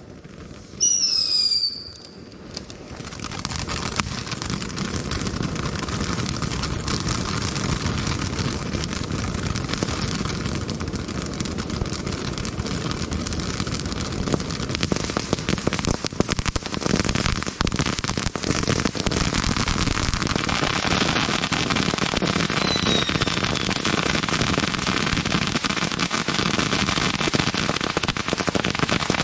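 Ground fountain firework spraying sparks: a steady hissing rush thick with fine crackling, building up over the first few seconds and crackling more heavily in the last third. About a second in there is a short, loud falling whistle.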